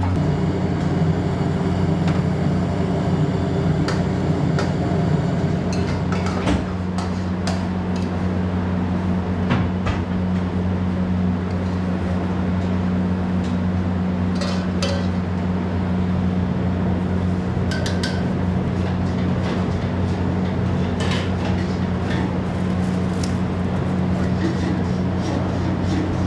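Stainless steel ladle and small steel serving bowls clinking and knocking on a steel counter as dal is served out, in scattered short clinks over a steady low kitchen hum.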